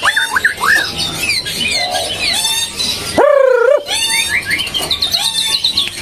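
Caged white-rumped shamas singing a rapid, varied stream of whistles, slurred glides and trills, several phrases overlapping. About halfway through comes a louder, wavering note lasting about half a second.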